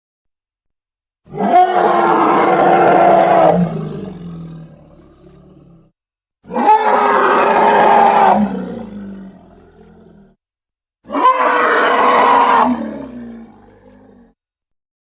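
A creature roar sound effect, played three times with silence between. Each roar is a loud, pitched call of about two and a half seconds that fades away with a rumbling tail.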